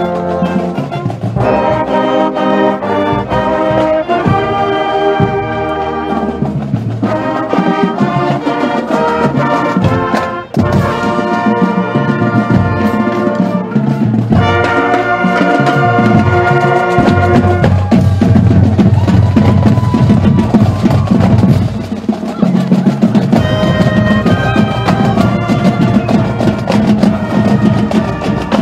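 Marching band playing while on the march: trumpets and other brass carry the tune in sustained phrases over drums, the low end growing fuller about halfway through.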